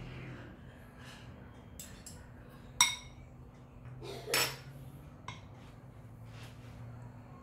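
A metal fork clinking against a glass mixing bowl: one sharp ringing clink about three seconds in, a duller knock a little over a second later, and a faint tick soon after.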